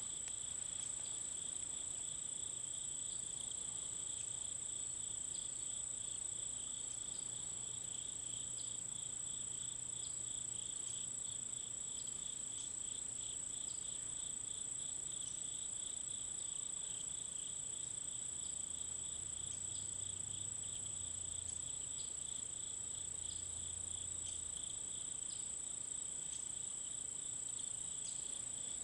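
Chorus of insects calling continuously: a steady, very high-pitched trill over a lower, rapidly pulsing trill, both holding level throughout.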